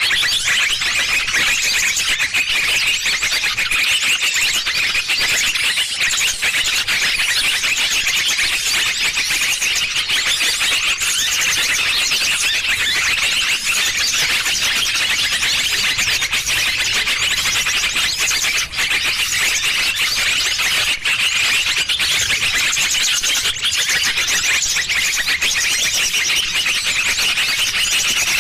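Dense, unbroken chatter of many small birds chirping and twittering at high pitch. This is a bird-trapping lure call (pikat) for small birds.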